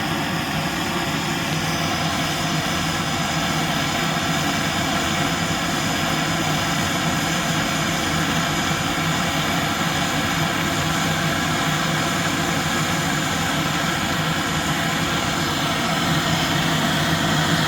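Gas blowtorch flame running steadily, a loud even roar, aimed at gold in a mold to melt it.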